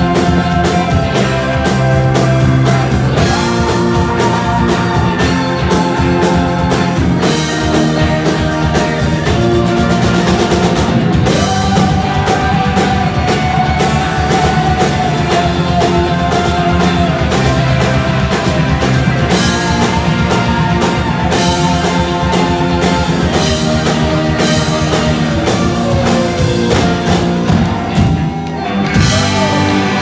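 Live rock band playing electric guitars, bass, keyboards and drums, with long held lead lines over a steady drum beat. The music drops off briefly near the end, then comes back in.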